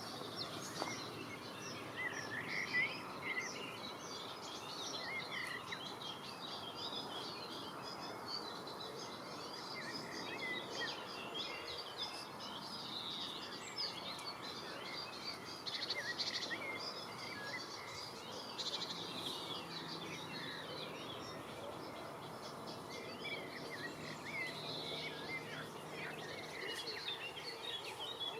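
Steady rush of river water with many small birds chirping and singing over it. A faint low hum comes in about two-thirds of the way through.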